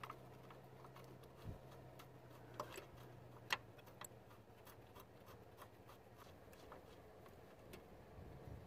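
Faint, scattered clicks and light taps as a new clutch slave cylinder and its metal hydraulic line are handled and lined up on the transmission; the sharpest tap comes about three and a half seconds in. A low steady hum lies underneath.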